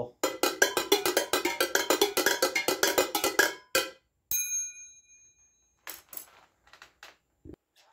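Painted tin cans struck with chopsticks in a fast, even run of strikes for about three and a half seconds. Then a single strike on a small metal plumbing fitting, which rings with a bright, triangle-like tone and fades over about a second and a half. A few faint taps follow near the end.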